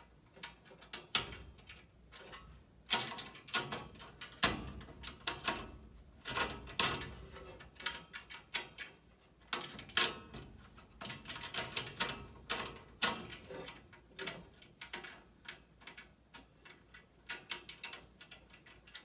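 Irregular metal clicks, taps and knocks from hands and tools working on a gas furnace's parts and panels, with some louder clunks along the way.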